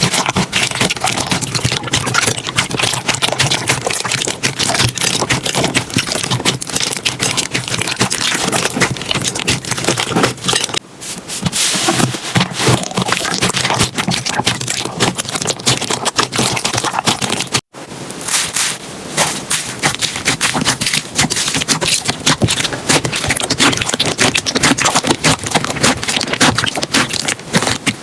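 Slime being squeezed and poked by hand, making dense crackling and popping clicks, with a sudden break about two thirds through where one clip cuts to the next.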